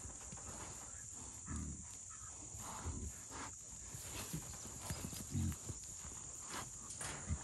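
Trapped wild hogs running and milling in a corral trap, their hooves scuffling and thudding on the dirt, with a few short low grunts, about one and a half, three and five and a half seconds in.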